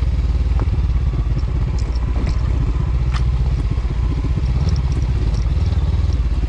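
Motorcycle engine running steadily at low revs while riding down a steep rocky trail, with scattered clatter and knocks from stones and the bike over the rough ground.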